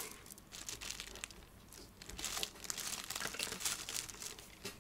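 Soft crinkling and rustling from gloved hands handling things on the workbench, a scatter of small crackles that grows busier about two seconds in.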